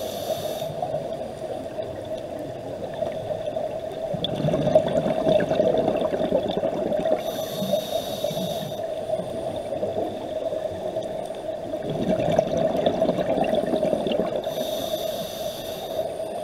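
Scuba diver breathing through a regulator underwater: a hiss on each inhale, three times about seven seconds apart, and a low gurgling rumble of exhaled bubbles between them, over a steady low hum.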